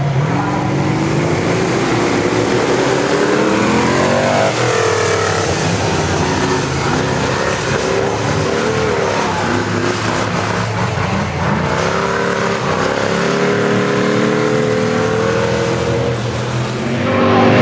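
Ultra4 off-road race car's V8 engine running hard on a dirt course, revving up and dropping back. One rev climb comes about three to four seconds in and a longer climb from about twelve to sixteen seconds.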